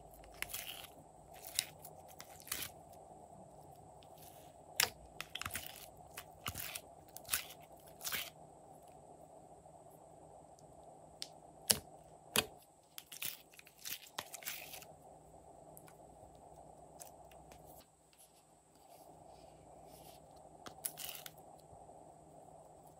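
Soft glittery slime handled by hand, pulled from a plastic tray and pressed into a glass dish: irregular sticky clicks and crackles in clusters, with a quieter lull of a few seconds late on.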